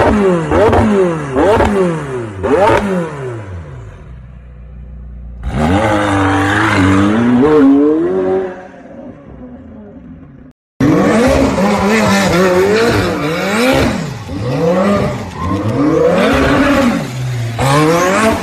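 McLaren 720S twin-turbo V8 through an R1 Motorsport exhaust, revved in quick repeated blips, dropping toward idle, then revved again. After a cut, a car engine revs up and down hard over a hiss of spinning tyres as it does donuts.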